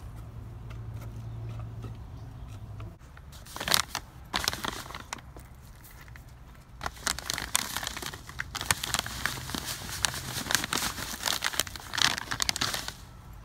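Plastic bag of potting mix crinkling and rustling as it is handled and emptied, in irregular bursts that start about three and a half seconds in.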